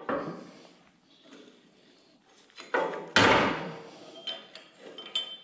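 Parts of a Belsaw M-14 sawmill's setworks, a cast gear and steel pieces, being handled and fitted onto a steel shaft. A knock sounds at the start, a louder clank comes about three seconds in, and light metal clinks with a brief ring follow near the end.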